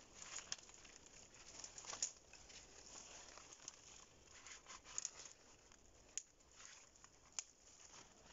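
Dry birch bark and twigs being handled and laid in place: faint, scattered crinkling and small snaps.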